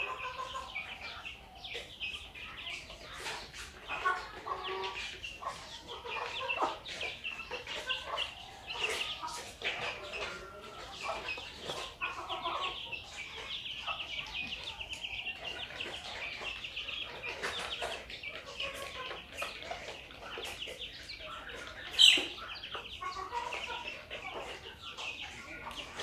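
A flock of chickens clucking and calling continuously, with a dense chatter of short high calls over lower clucks. One louder, sharp call stands out about 22 seconds in.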